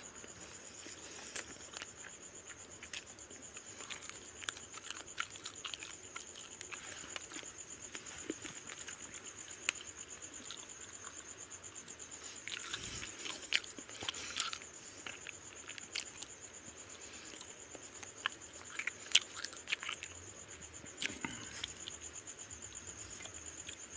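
Close-up eating sounds of fish head curry and rice eaten by hand: chewing with many short wet clicks and smacks of the mouth and fingers, scattered unevenly. A faint steady high-pitched whine runs underneath.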